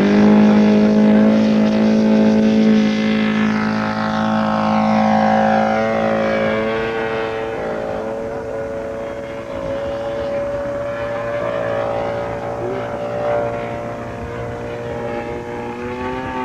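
Quarter-scale RC Hawker Hurricane's Super Tiger 6000 twin-cylinder 60 cc glow engine running at high power after opening up, its pitch steady for several seconds and then wavering and shifting as the model flies.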